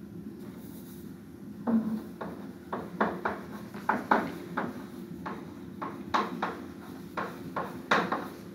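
Chalk writing on a blackboard: an irregular string of short taps and scratches as each symbol is written, starting a little under two seconds in.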